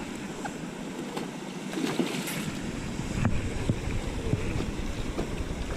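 Wind buffeting the microphone, a low rumbling hiss that eases for the first couple of seconds and then picks up again, with a few faint clicks.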